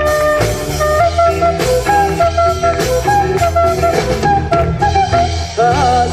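Band music with guitar, bass and drums playing an instrumental melody with a steady beat; a voice starts singing near the end.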